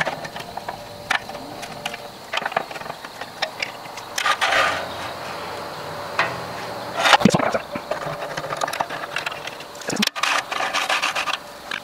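Metal parts being handled and knocked together: scattered clicks and knocks, a short scrape about four seconds in and a sharp knock about seven seconds in.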